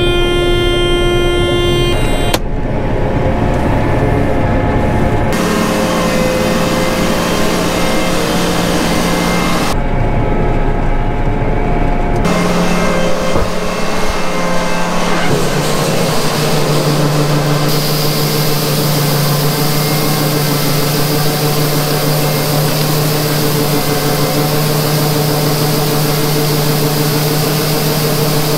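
A John Deere combine harvesting, its diesel engine and machinery running steadily. The sound changes abruptly several times where clips are cut together.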